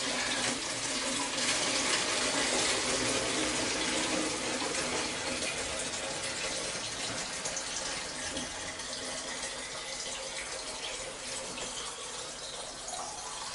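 Kitchen tap running into a 2-litre plastic milk jug as it fills, a steady rush of water that slowly gets a little quieter.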